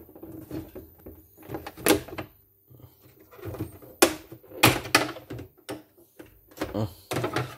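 Irregular handling knocks and clicks around a portable embroidery machine and its hoop, with sharp ones about two, four and five seconds in.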